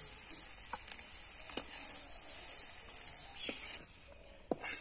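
Oil sizzling in a steel kadai of fried potatoes and flat beans as they are scooped out with a metal spatula, with a few sharp clinks of the spatula on the metal. The sizzling stops about four seconds in, and a quick cluster of clinks follows near the end.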